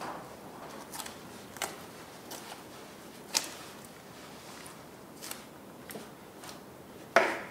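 Faint rustling of feathers and skin with scattered small clicks as a knife works the breast meat off a wild turkey carcass, and a louder rustle near the end.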